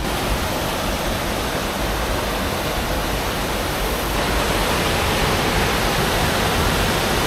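Steady rush of a fast-flowing mountain creek, a dense even noise of running water that grows slightly louder about four seconds in.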